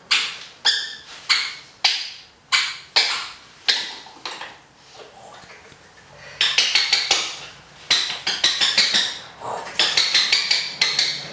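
A series of sharp slaps and taps on a hard floor, such as a hand patting the floor during rough play with a puppy: single slaps about every half second at first, then quick flurries of taps from about six seconds in.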